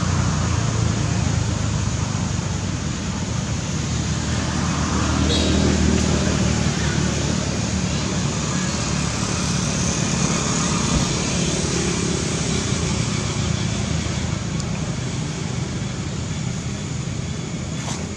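Steady low rumble and hiss of background traffic noise.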